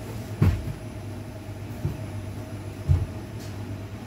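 Three dull knocks, the loudest about half a second and three seconds in, as a silicone spatula and stainless steel bowl are handled while cream cheese is mixed. A steady low hum runs underneath.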